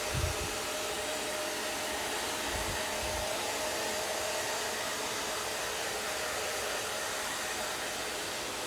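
Hair dryer blowing steadily: an even rush of air with a faint steady tone in it, and two brief low bumps in the first three seconds.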